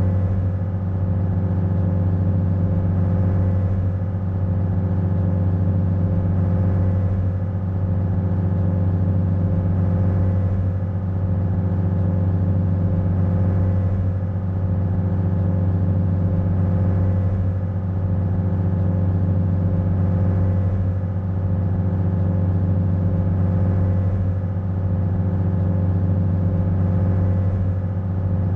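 Ferry engine running steadily under way: a deep, even drone with a faint regular swell about every three and a half seconds.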